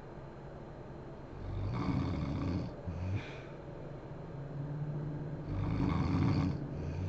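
A sleeping woman snoring: two loud snores about four seconds apart, each followed by a short, quieter second snore.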